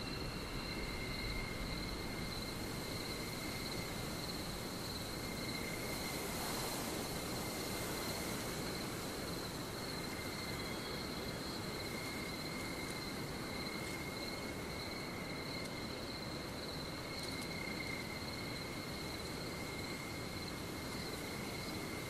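Forest ambience: insects trilling steadily at one high pitch, over an even background hiss.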